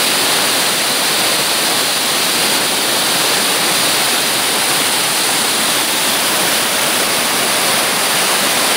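Mountain stream cascading over bedrock slabs and small falls: loud, steady rushing of white water.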